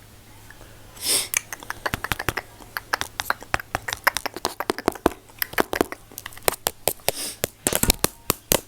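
Close-miked ASMR mouth sounds: rapid, irregular wet clicks and pops with a few short breathy hisses. They start about a second in, after a brief quiet spell.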